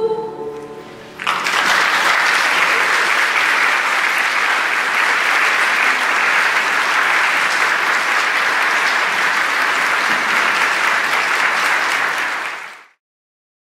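The last held chord of a youth choir and piano dies away, then a church audience applauds steadily for about eleven seconds before the sound fades out quickly.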